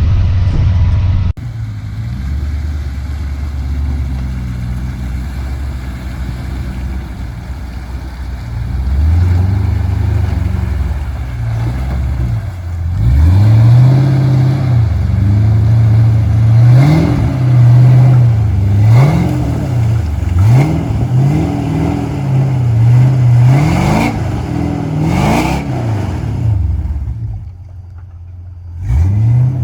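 Chevrolet square-body 4x4's swapped-in 6.0 Vortec V8 pulling through mud. It runs steadily at first, then from about ten seconds in revs up and down over and over, its pitch rising and falling half a dozen times, and eases off briefly near the end.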